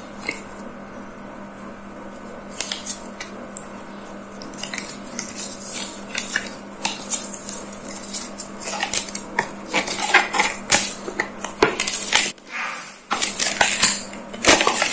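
A folded paper leaflet being unfolded and handled: crinkling and rustling in quick irregular bursts, sparse at first and busier from about halfway.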